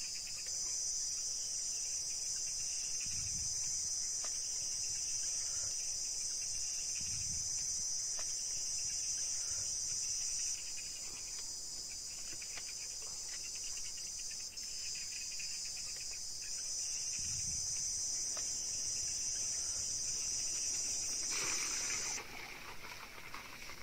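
Steady, high-pitched chirring of an insect chorus, crickets, without a break. Near the end the chirring stops and water is poured from a clay pot, splashing into the pool.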